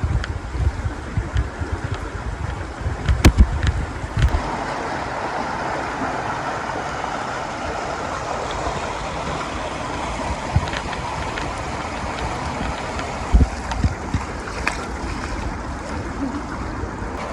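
Steady rush of flowing water. In the first few seconds, wind buffets the microphone and there are a couple of sharp knocks.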